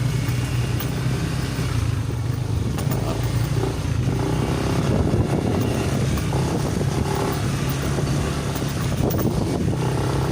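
Motorcycle engine running steadily as the bike is ridden, with a low, even drone that shifts slightly in pitch.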